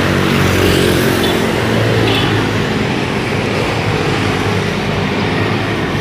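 Engine and road noise of a car driving along a town street, a steady hum and tyre rush, with motorbike traffic alongside.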